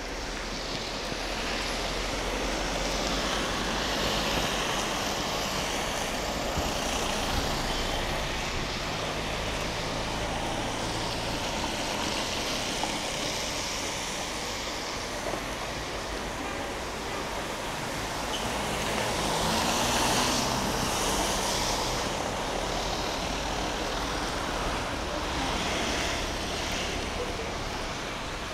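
Street traffic on a wet road: cars passing with a tyre hiss that swells and fades several times, loudest about twenty seconds in.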